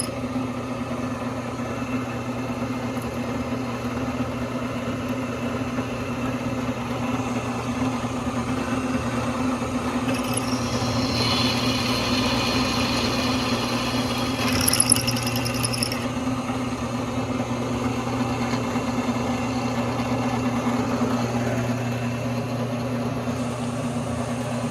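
Benchtop drill press's electric motor running with a steady hum, now working after its rusted, jammed quill was cleaned and regreased. A few light mechanical noises come in about halfway through.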